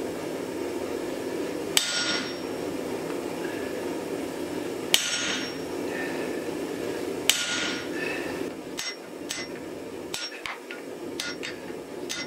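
A handled hot-cut chisel is struck with a hammer, cutting a line into a glowing-hot steel block on the anvil. There are three heavy ringing blows about three seconds apart, then a quicker run of lighter ringing strikes, all over a steady low drone.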